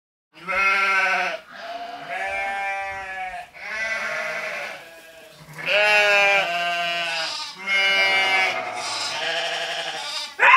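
A run of about six bleat-like calls, each about a second long and wavering in pitch, ending in a sudden louder cry near the end.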